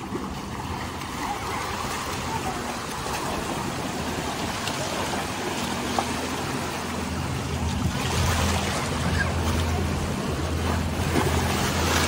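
Small waves breaking and washing over a shallow sandy beach in a steady hiss of surf, with a low steady hum underneath that grows a little louder about two-thirds of the way through.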